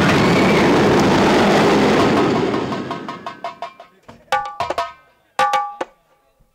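Stage drums: a fast, dense drum roll that fades away over the first three seconds, then a few separate ringing drum strokes, the loudest in two clusters about four and five and a half seconds in.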